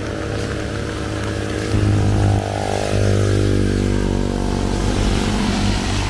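A motor vehicle's engine passing close by, coming up suddenly about two seconds in and then fading away, over a steady hiss of rain.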